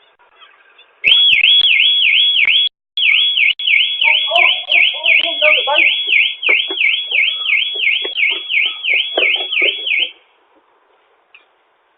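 Electronic alarm siren warbling rapidly up and down, about four sweeps a second. It breaks off briefly a couple of seconds in, then carries on and stops near the end.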